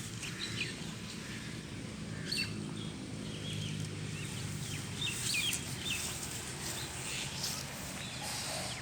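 Garden birds chirping and tweeting in short scattered calls, over a low steady hum that is strongest in the middle of the stretch.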